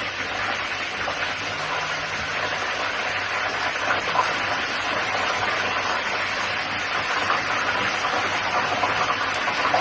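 Fish frying in hot oil in a pan, a steady sizzle.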